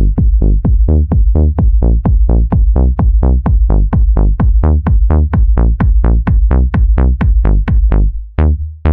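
Electronic dance music: a fast, even run of short plucked synth notes, about four or five a second, over a heavy steady bass, breaking off briefly near the end.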